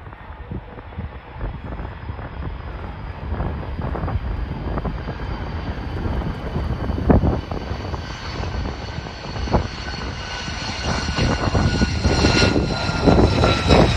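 Lockheed Martin F-35 Lightning II's single jet engine running as the fighter rolls along the runway after landing, growing steadily louder as it comes closer: a low rumble under several steady high whine tones. A few brief thumps cut through about halfway.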